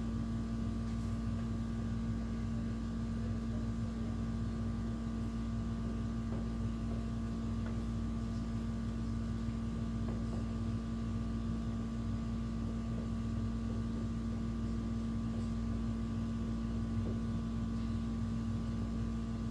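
Steady machine hum with a constant low tone and a deeper rumble beneath it, unchanging throughout.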